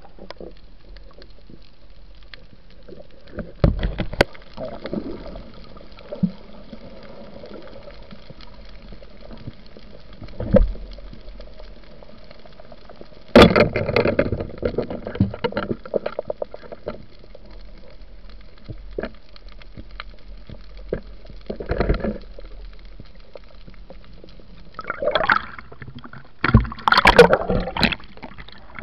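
Water heard from below the surface: a steady muffled wash broken by irregular bursts of splashing and bubbling, the loudest cluster near the end, where a speared fish thrashes at the surface.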